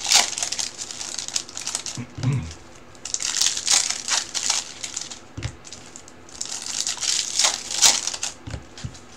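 Clear plastic shrink wrap on a trading-card box being crinkled and pulled off by hand, in three spells of crackling: at the start, about three seconds in and again near the end.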